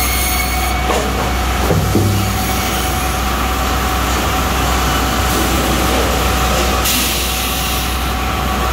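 Sawmill board-handling conveyors running: chain transfers and powered rollers moving rough-sawn boards, a steady machine hum with a steady high tone over it. A couple of knocks of wood on the conveyor come about one and two seconds in.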